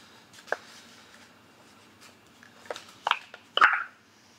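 Hands handling packaging: a few short knocks and rustles, the loudest a brief crinkle about three and a half seconds in.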